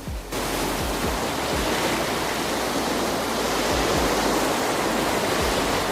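Breaking ocean surf: a steady, heavy rush of crashing wave water that starts abruptly and cuts off suddenly.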